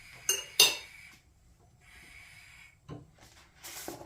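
A metal fork clinking against a saucepan while stirring boiling porridge: two sharp, ringing clinks in the first second, then a few softer knocks near the end.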